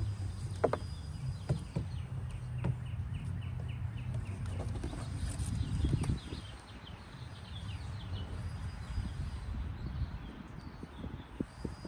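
Scattered light clicks and knocks of trimmer parts being handled, over a low rumble that drops away about six seconds in. A rapid series of short bird chirps runs from about two to five seconds in.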